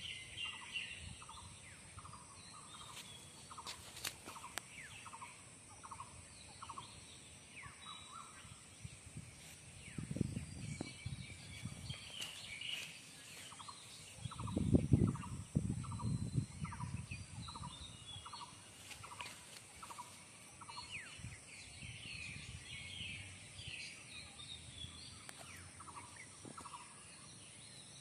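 Birds calling outdoors: one repeats a short note about twice a second in runs of several seconds, with higher chirps over it and a steady high hiss behind. Low rumbling bumps about halfway through are the loudest sound.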